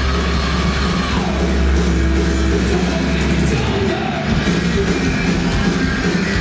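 Heavy metal band playing live at full volume: distorted electric guitars, bass and drums, with a singer shouting the vocals into the microphone.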